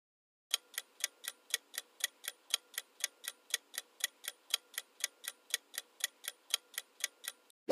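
Quiz countdown timer sound effect: clock-like ticking, about four even ticks a second, that starts about half a second in and stops just before the end.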